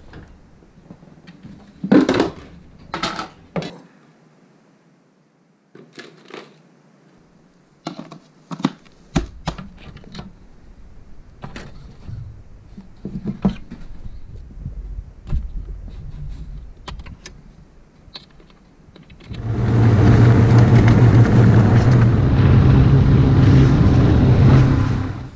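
Scattered knocks, clinks and scrapes of things being handled, such as a metal shovel scraping ash from a wood stove. About 19 s in, a Ski-Doo Skandic SWT snowmobile engine starts running loud and steady under way, heard from the rider's seat, and drops away just before the end.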